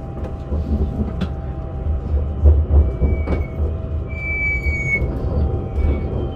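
Railway train rolling slowly over the track with a steady low rumble, its wheels giving several short, high squeals.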